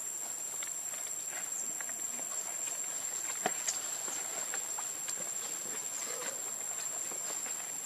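Outdoor ambience: a steady high-pitched insect drone with scattered soft clicks and rustles, two sharper clicks a little over three seconds in.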